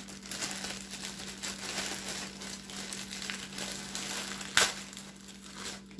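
Thin plastic produce bag crinkling as it is handled, with one sharper crackle about four and a half seconds in.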